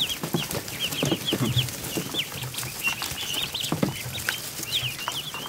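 A brood of day-old ducklings peeping: many short, high, rapid peeps overlapping throughout, with a few soft low thumps and rustles.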